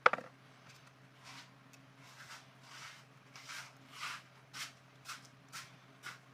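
A single sharp plastic-sounding click, then a run of soft rustling or scraping strokes about twice a second: a toy BB gun and its packaging being handled.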